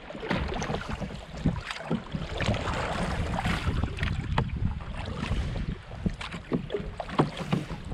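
Wooden oars splashing and knocking in their oarlocks as a small rowboat is rowed, with irregular knocks and splashes over a steady rumble of wind on the microphone.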